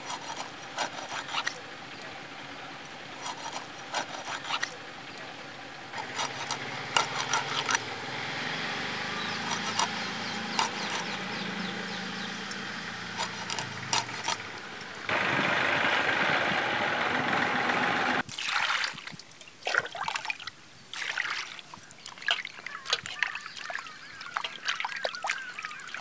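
Fish being cut and scraped on a floor-mounted curved fish-cutting blade: a string of sharp clicks and scrapes, with a low hum in the background through the middle. About fifteen seconds in, water pours steadily for about three seconds and stops abruptly. Then hands splash and rub fish pieces in a steel bowl of water.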